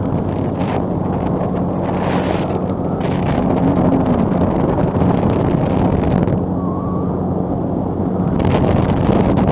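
Flex-wing microlight trike's engine droning steadily at cruise in flight, with wind noise on the microphone that comes and goes, easing for a couple of seconds past the middle.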